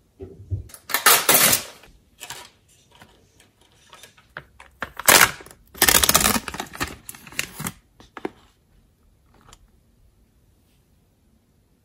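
Plastic cheese packaging crinkling and rustling as it is handled and opened. It comes in irregular bursts, the loudest a few seconds long about halfway through, with small clicks and taps between.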